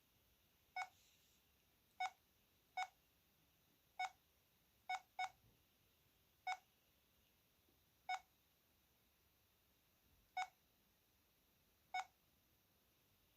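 VK530 mobile phone's key-press tone: ten short, identical beeps at uneven intervals, one for each button pressed.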